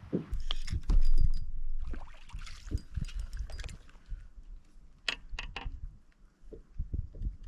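Thumps, knocks and rustling as a bass is landed and handled on a fishing boat's deck, with a heavy low rumble in the first two seconds and three sharp knocks a little after the fifth second.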